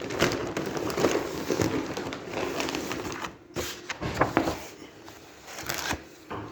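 Rustling, irregular clicks and light knocks of things being handled, as items are pulled out of a bag.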